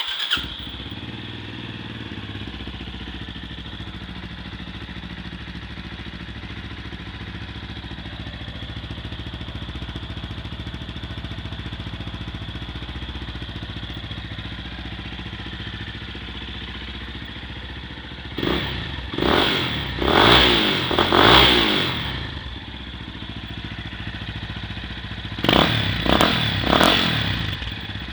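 Yamaha Fazer YS 250's single-cylinder four-stroke engine, breathing through an aftermarket Coyote TRS tri-oval racing exhaust, idling steadily, then blipped about four times in quick succession about two-thirds of the way through and three more times near the end.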